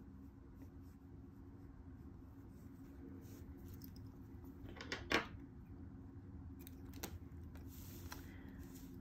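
Faint handling of a stiff needlepoint canvas: mesh rustling and crinkling as it is moved and turned over, with a few sharp clicks, the loudest about five seconds in.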